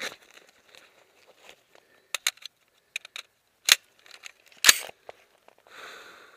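Clicks and knocks of a black rifle and its gear being handled and set onto a wooden plank over a plastic barrel, with two louder knocks, the loudest a little before five seconds in. A short hiss near the end.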